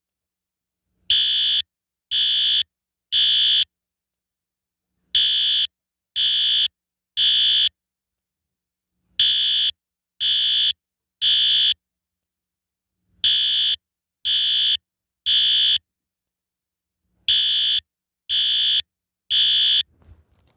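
System Sensor SpectrAlert Advance fire alarm horn sounding the temporal code 3 pattern: three short blasts of about half a second, then a pause of about a second and a half, repeated five times. This is the standard temporal-3 evacuation signal.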